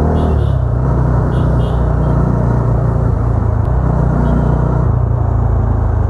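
Bajaj Dominar's single-cylinder engine running as the motorcycle rides along, heard from the tank-mounted camera, its note shifting lower about half a second in.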